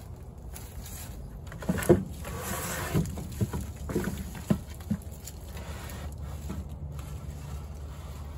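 Dry pine needles rustling as they are pulled by hand off old weathered wooden deck boards, with a handful of sharp wooden knocks as loose boards are handled, the loudest about two seconds in. A steady low hum runs underneath.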